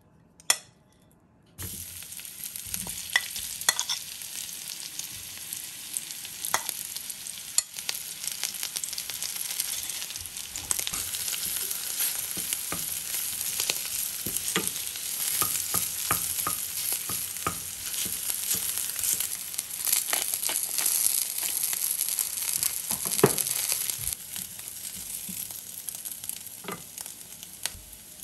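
Food sizzling in a hot frying pan. The sizzle starts suddenly about a second and a half in and runs on with frequent small clicks of a utensil as the food is stirred. It gets quieter near the end.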